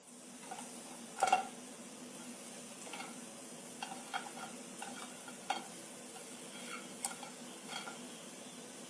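A steady hiss with light clicks and clinks scattered through it, the sharpest about a second in.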